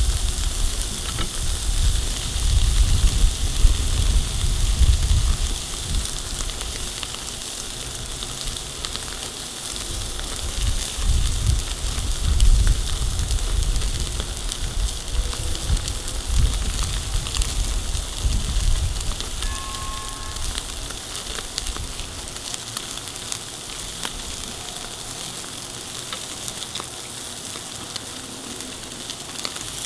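Ribeye steaks sizzling on a hot cast iron grill grate over charcoal, with a low rumble under the sizzle that fades about two-thirds of the way through.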